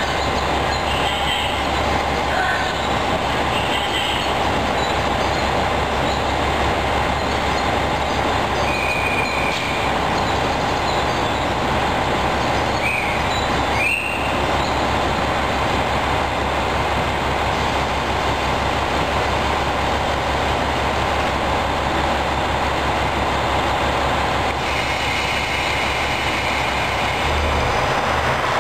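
JR West KiHa 47 diesel railcar standing with its engines idling: a steady low diesel drone with a constant noise over it. A few brief high-pitched tones break in, one rising sharply about halfway through.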